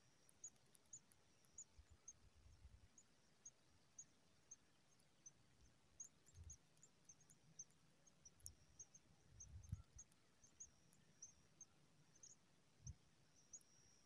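Near silence, with faint, short, high chirps a few times a second and a few soft low thumps.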